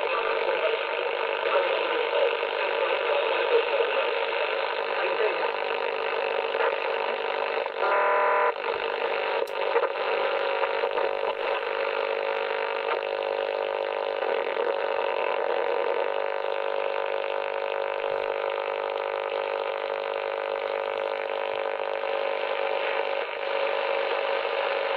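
Shortwave audio from an Icom IC-718 receiver in AM mode being tuned across the bands: a steady, muffled hiss and static with faint broadcast audio under it, on a receiver the owner finds rather noisy. A short buzzy tone comes through about eight seconds in.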